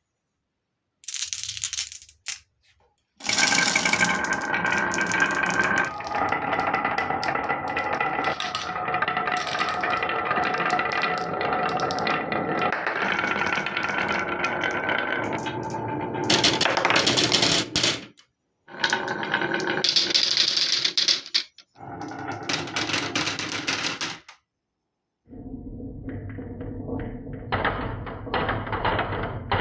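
Many marbles rolling and clattering down a wooden marble run, a dense rapid rattle with some ringing, broken by short silent gaps where the clips are cut.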